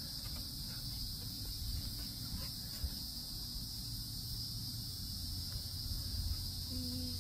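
Insects chirring in a steady, high-pitched drone, over a faint low rumble.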